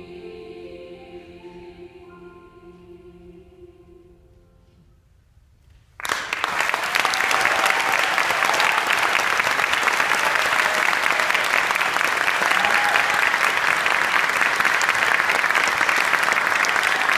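A youth choir's soft final chord fades away over the first few seconds. After a brief hush, audience applause breaks out suddenly about six seconds in and goes on loud and steady.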